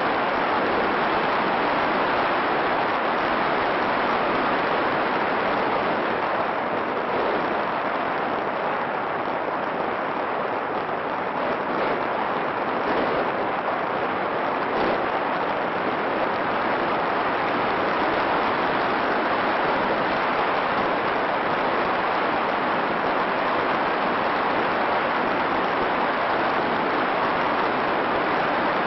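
Steady, even static hiss with no motor tone or rhythm in it, typical of the audio channel of an FPV video receiver recording.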